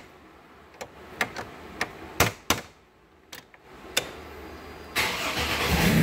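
A few sharp clicks, then about five seconds in the 2003 Chevy Trailblazer's 4.2-litre inline-six starts and runs, getting louder into the end. It fires right up in park, the sign that the newly replaced neutral safety switch has cured the no-start.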